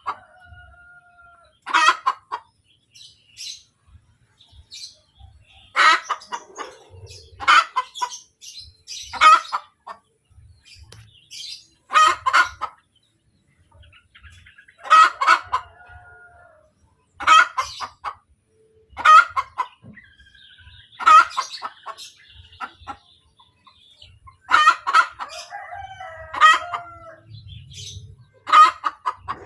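Domestic hen cackling after laying an egg: loud bursts of quick, sharp clucks, repeated every couple of seconds.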